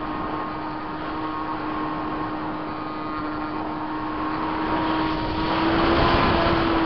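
Multiplex Easy Star RC plane's Permax 400 electric motor and pusher propeller, heard from the camera on board: a steady whine over rushing air noise. About five to six seconds in it grows louder and slightly higher, then eases again.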